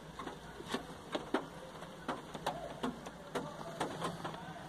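Raindrops tapping irregularly, a few sharp ticks a second, over a faint low hum.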